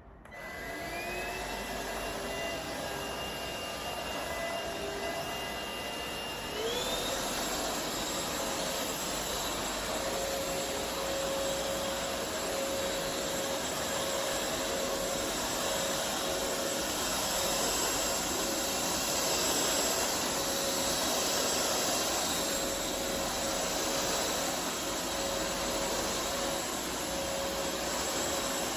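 Cordless stick vacuum's motor running with a steady whine and rush of air, spinning up at the start. About six and a half seconds in, the whine glides higher and the sound gets louder, then holds steady.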